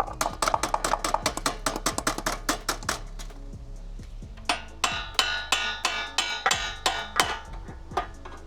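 Socket ratchet clicking in quick runs on the brake linkage nut of a motorcycle, as it is worked loose. The clicking pauses for about a second just before the middle, then starts again.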